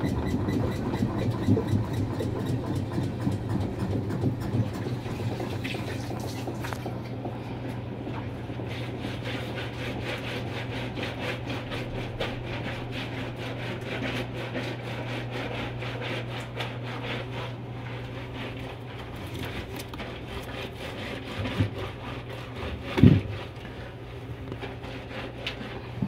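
Top-loading washing machine on its spin cycle: a steady motor hum with fast rattling from the spinning drum, slowly fading as the drum winds down. One sharp knock comes near the end. This is a machine that no longer agitates but still spins, and spins slowly.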